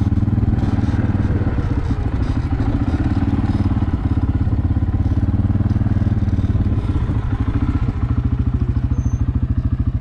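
Small engine of a farm bike running at low speed while herding cows. Its firing beats grow slower and more distinct about seven to eight seconds in as it eases off.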